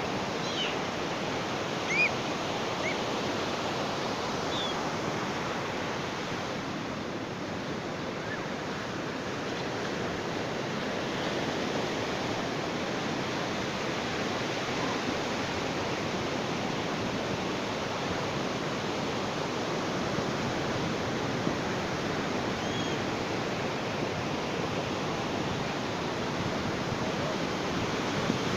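Ocean surf washing steadily on a beach, a continuous wash that eases slightly for a few seconds and swells back. A few faint short chirps sound over it near the start and once late on.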